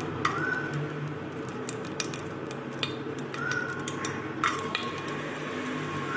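Metal spoon stirring and scraping in a cooking pot, with scattered clinks and a few short squeaks of metal on metal over a steady low hum.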